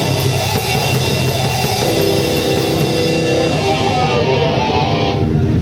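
Live rock band playing, with drum kit and electric guitar; about four seconds in the cymbals and high end drop away as the song winds down.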